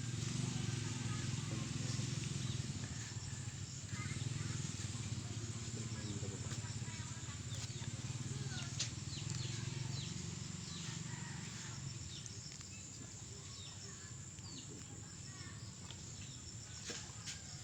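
Rural background ambience: a steady high insect trill with scattered short bird chirps, over a low hum that fades about two-thirds of the way through.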